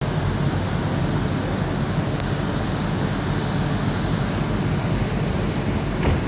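Rubber-tyred Mitsubishi Crystal Mover LRT train giving a steady low rumble and hum, with a faint click about two seconds in and another near the end.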